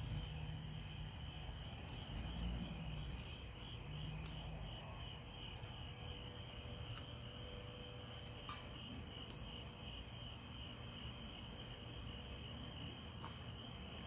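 Crickets chirping in a steady, evenly pulsing chorus, with a low rumble beneath and a few faint scattered clicks.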